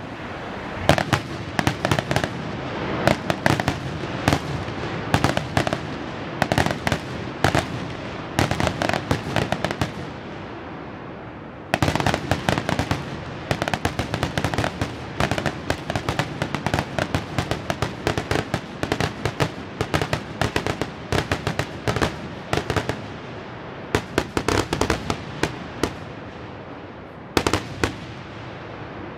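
Aerial fireworks finale: a rapid barrage of bangs and crackling reports in dense clusters. It eases off briefly, starts again suddenly a little before the halfway point, and ends with a final cluster of bangs near the end.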